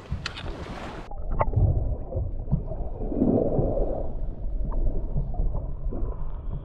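Shallow seawater as heard by a camera dipped under the surface: about a second in, the open-air noise cuts off and turns to a muffled underwater rumble of moving water, with a few faint clicks.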